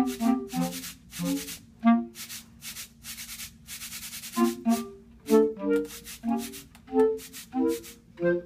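Clarinet quartet with a bass clarinet playing short, detached notes in a choppy rhythm, broken up by repeated bursts of hissing air noise.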